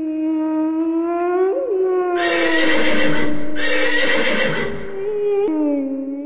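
Wolf howling: one long, steady howl, then a drop to a lower howl that rises near the end. A rougher, noisier cry sits over the middle of it.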